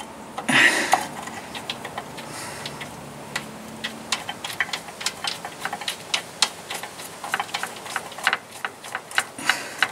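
Socket ratchet on an extension bar clicking in quick, uneven runs as a clutch mounting bolt is turned up into place. A brief scuff of metal comes about half a second in.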